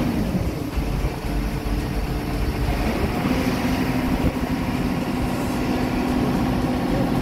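Heavy construction machinery engine running steadily. Its low hum fades about half a second in and comes back about three seconds in.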